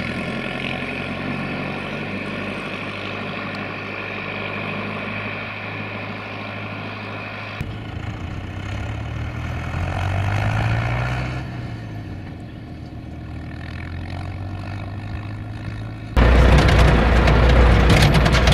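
International 844S tractor's engine running as it drives along the road towing a harrow. About eight seconds in the sound changes to the tractor passing by, swelling and then fading. Near the end it turns suddenly much louder and deeper, heard from inside the cab.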